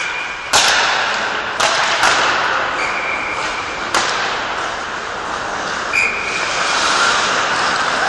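Ice hockey practice: pucks smacked by sticks and banging off the boards, about five sharp hits, a few leaving a short ringing tone, over a steady scraping of skates on ice, echoing in a large arena.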